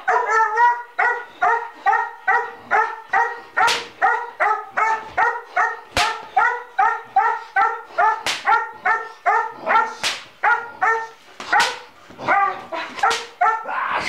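A young dog barking over and over at a steady pace, about two or three fairly high-pitched barks a second without a break. A few sharp clicks sound among the barks.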